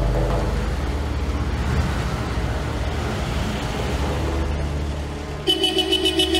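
A classic Mercedes-Benz saloon's engine running as the car rolls slowly over cobblestones, heard as a steady low rumble. About five and a half seconds in, a louder pulsing high tone comes in over it.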